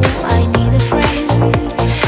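Background electronic dance music with a steady beat of about four beats a second.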